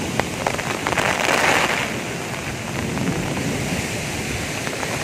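Rain falling steadily on outdoor surfaces, swelling louder for a moment about a second in, with a few close drops ticking in the first second.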